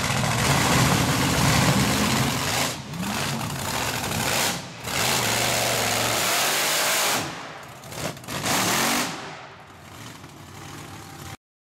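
Mud-bog truck engines revving hard, the pitch climbing and falling, with a few brief breaks. The sound cuts off suddenly near the end.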